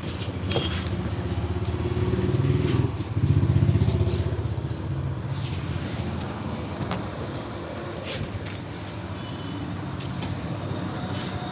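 Low rumble of a motor vehicle passing close by, swelling to its loudest about three to four seconds in and then easing to a steady traffic hum, with scattered faint taps and clicks.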